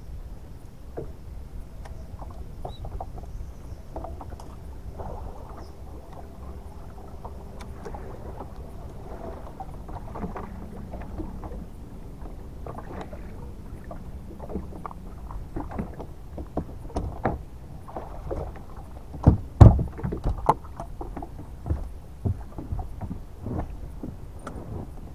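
Clunks and knocks on a bass boat's deck as the bow-mounted trolling motor is lifted and stowed on its bracket. The knocks come more often in the second half, the loudest cluster about twenty seconds in, over a steady low background noise.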